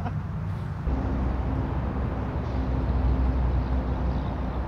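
A vehicle's engine running steadily, a low rumble that gets stronger about a second in.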